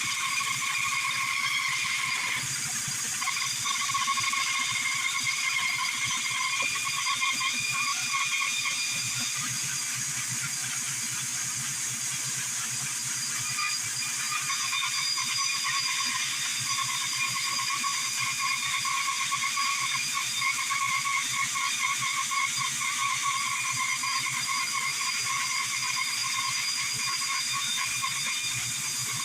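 Bandsaw running steadily, with a continuous high whine and rattle.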